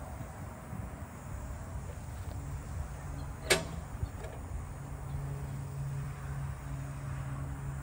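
A sharp metal click about three and a half seconds in, with a lighter one just after, as the railroad crossing gate mechanism's housing is handled during maintenance. A faint low steady hum runs under it from the middle on.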